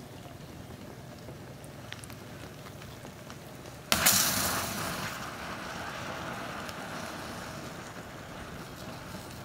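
Disposable butane lighters burning under foil-wrapped chicken: steady fire noise with a few faint ticks, then about four seconds in a lighter bursts with a sudden bang and a rush of flame that fades over the next few seconds.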